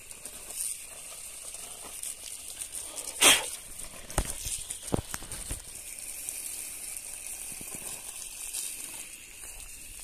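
Water from a garden hose hissing and splashing onto the leaves of a guava tree, with a brief louder burst about three seconds in and a few short knocks after it.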